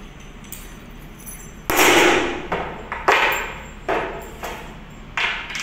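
Small brass parts of a fire-hose coupling lug being set down one after another on a tabletop. About six sharp clinks and knocks, each ringing briefly; the first, a little under two seconds in, is the loudest.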